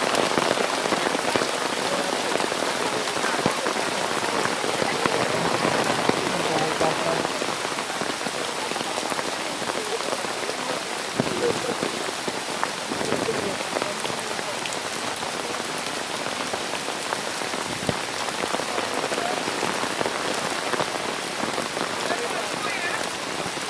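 Hail falling, a dense, steady patter of many small hits with a few sharper single hits standing out.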